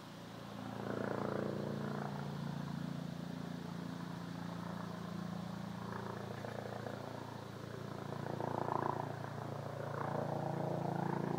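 Helicopter droning overhead: a steady low hum that grows louder about a second in and swells again shortly before the end.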